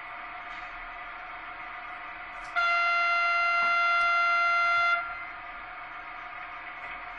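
The sound decoder of an ACME H0 model of an FS E636 electric locomotive sounds one horn blast of about two and a half seconds, starting about two and a half seconds in, over the steady running hum of the moving locomotive.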